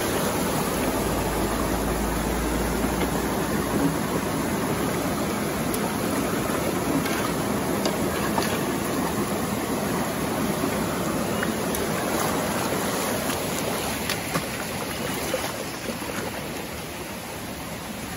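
Steady rush of flowing river water, with a few faint clicks, easing slightly near the end.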